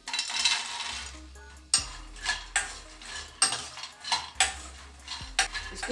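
Makhana (dried fox nuts) tipped from a bowl into a metal kadhai, rattling for about the first second and a half. Then a metal spatula stirs them, scraping and knocking against the pan at irregular moments.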